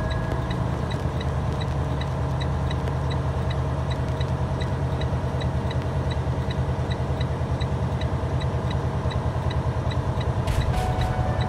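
Semi truck's diesel engine running steadily at low speed, heard from inside the cab as a low, fast-pulsing drone.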